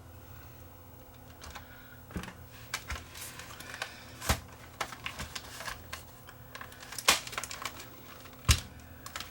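Scattered light clicks and taps from handling and opening a small plastic camcorder body, with a few sharper knocks about four, seven and eight and a half seconds in, over a faint steady electrical hum.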